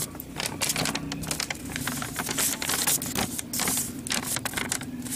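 Paper instruction sheet being unfolded and handled, with a dense run of irregular crackles and rustles.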